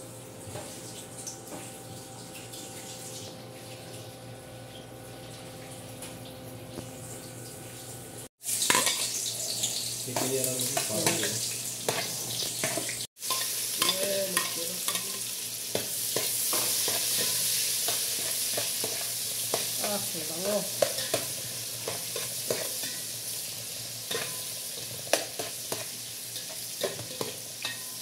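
For the first eight seconds a steady hum from an induction cooktop heating a pot. After a cut, chopped onion and garlic hit hot oil and sizzle loudly, with a metal spoon stirring and scraping in the aluminium pot.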